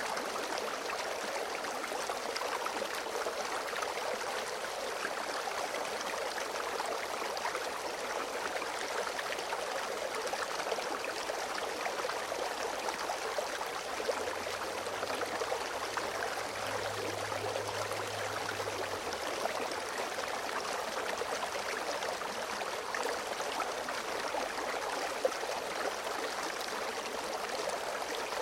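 Small stream flowing steadily, an even, unbroken rush of running water.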